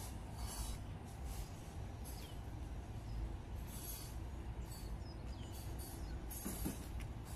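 Outdoor park ambience: a steady low rumble with a soft swish roughly once a second, in time with walking, and a few faint bird chirps.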